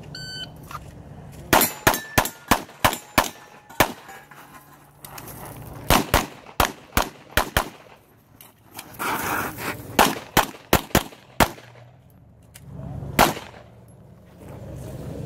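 A shot timer beeps once, then a handgun is fired in rapid strings of shots with short pauses between them. A gap of a couple of seconds in the middle is a little jam being cleared. A single last shot comes near the end.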